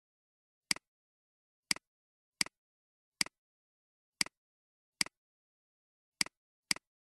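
Computer mouse button clicking: eight single clicks at uneven spacing, each a quick press and release, with silence between them.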